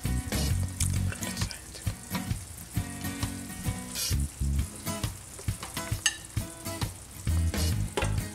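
A slotted metal spatula scrapes and scoops jerk chicken and vegetables out of a hot stainless sauté pan that is still sizzling, with repeated scrapes and clinks against the pan.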